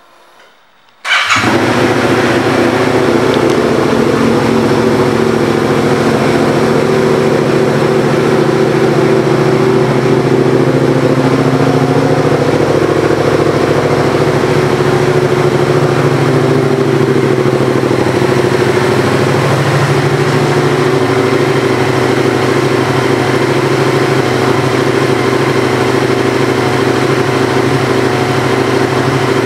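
2019 Yamaha MT-07's 689 cc parallel-twin engine, fitted with an aftermarket exhaust, starting about a second in and then idling steadily.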